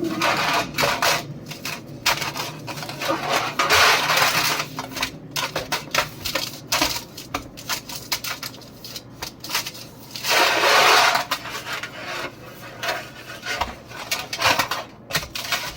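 A baking pan being handled while cooking oil is spread over its bottom and sides: scattered light clinks and knocks, with two longer stretches of rubbing about four and ten seconds in.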